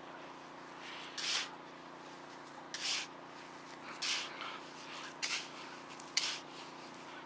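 A hand and a pinpointer scraping and sweeping through beach sand, five short scrapes about a second apart.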